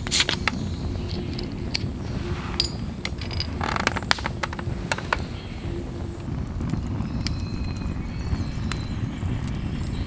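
Wood fire crackling in an open fire grate: irregular sharp pops and snaps over a steady low rumble of burning logs.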